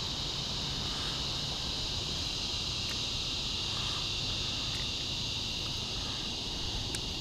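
A steady chorus of insects: a continuous high-pitched shrill that holds level throughout.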